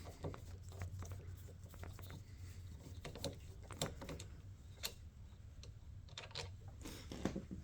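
Sparse, irregular light clicks and taps of a hand tool working the brake lever's pivot bolt loose on a Razor dirt-bike scooter's handlebar, over a faint low steady hum.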